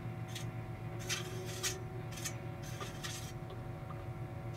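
Eddystone 840A valve shortwave receiver being tuned with no antenna connected: a steady hum from its speaker, broken by several short scratchy bursts of static and noise as the dial sweeps.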